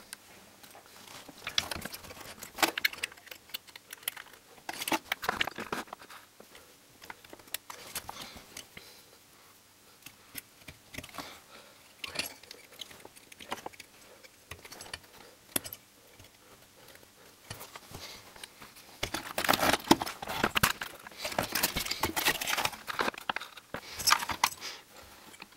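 Hands handling a CRT television's circuit board and small electronic parts while fitting a replacement line (horizontal output) transistor to its aluminium heatsink: scattered small clicks, taps and rattles, growing busier and louder about three quarters of the way through.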